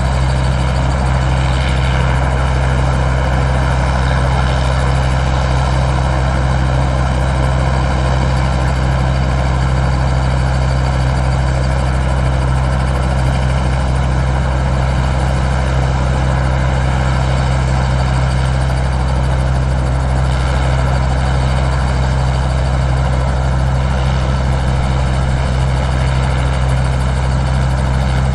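A heavy engine idling steadily, a deep, even hum that holds one pitch throughout.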